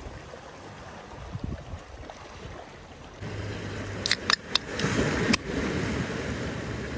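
Waves and wind at the shore, growing suddenly louder about three seconds in, with a steady low hum beneath. A few sharp clicks come between about four and five and a half seconds in.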